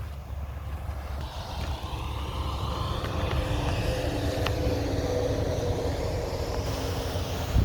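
A motor vehicle going by, its engine hum and road noise swelling over the first few seconds and then holding, over a steady low rumble.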